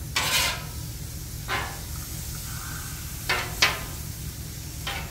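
Metal spatulas scraping and turning shrimp on a hot steel flat-top griddle: about five sharp scrapes and clinks spread through the few seconds, over faint sizzling and a low steady hum.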